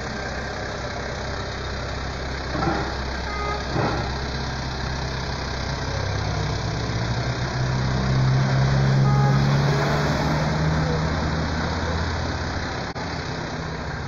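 Motor vehicle engine running close by, its pitch and loudness rising to a peak about nine seconds in as it speeds up, then easing off.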